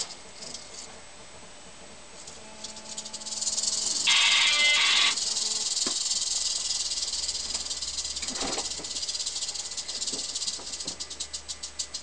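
Rattlesnake shaking its tail rattle: a continuous dry, high buzz that starts about three seconds in. It swells into a louder burst for about a second at four seconds and breaks into quick pulses near the end.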